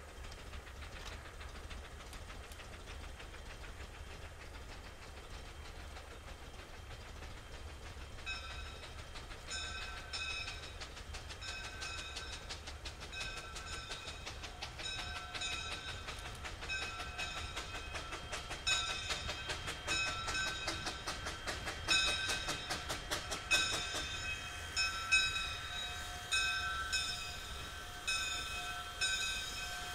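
Maine two-foot narrow-gauge steam locomotive approaching with its train. From several seconds in, its bell rings about once a second, growing louder as it nears, and clicks from the wheels and running gear come through near the end.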